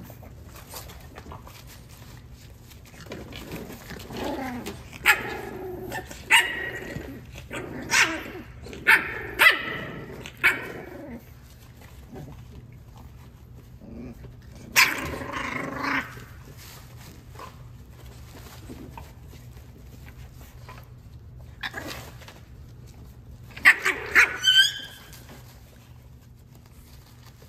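French bulldog puppies play-fighting, yapping and growling in short bursts: a run of sharp barks, a pause, another burst about halfway through, and a quick cluster of yaps near the end.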